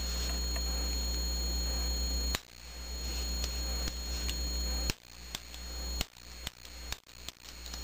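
Sharp metal clicks from a reassembled Ruger 10/22 trigger group being worked in the hands: one about two and a half seconds in, another near five seconds, then a quicker run of clicks near the end. A steady electrical hum runs underneath.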